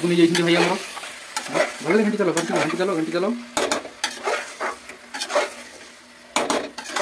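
A steel ladle stirs and scrapes a thick curry in an open pressure cooker, clinking sharply against the pot again and again, while the curry sizzles on the flame.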